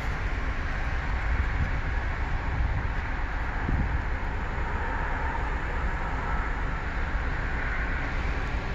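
Steady cabin noise of a 2020 Ford Escape idling in Park: a continuous low rumble with an even hiss above it.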